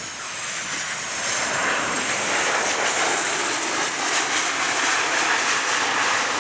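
Boeing 737's CFM56 turbofan engines roaring as the airliner touches down and rolls out along the runway, growing louder over the first second or two and then holding steady.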